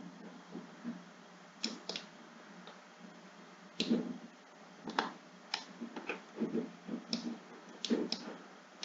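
Computer mouse clicking: about nine short, sharp clicks at irregular intervals, a few coming in quick pairs, over a faint steady background hiss.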